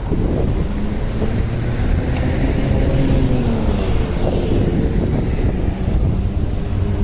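A vehicle passing on a city street over a steady low traffic rumble, with wind buffeting the microphone.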